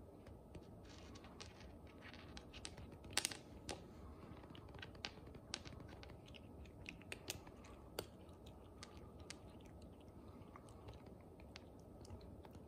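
A long-haired Scottish cat crunching dry kibble treats off a hard floor: irregular sharp, faint crunches, with a louder cluster about three seconds in.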